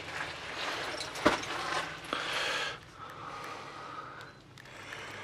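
Footsteps scuffing and crunching over rock and mud, with a sharp knock about a second in; the movement gets quieter after about two and a half seconds.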